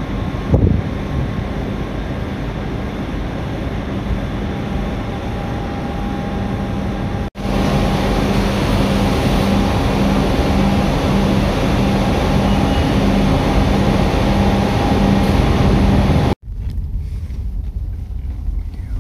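A car ferry's engines running steadily, first heard from the deck with some wind on the microphone. About seven seconds in, the sound cuts to a louder, steady drone with a low hum inside the ferry's open vehicle deck as it docks. About sixteen seconds in, it cuts again to a quieter car engine and road noise heard from inside a taxi.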